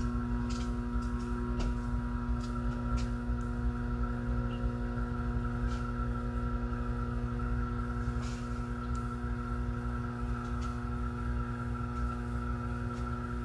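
A steady droning hum of several unchanging tones over a low rumble, with a few faint clicks and knocks scattered through it.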